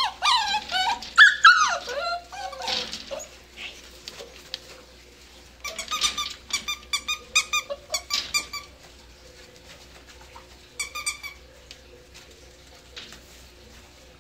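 Young dachshund–basset hound mix puppies yipping and whining as they play: high, bending whines in the first couple of seconds, then quick runs of short, high yips in the middle and again briefly later.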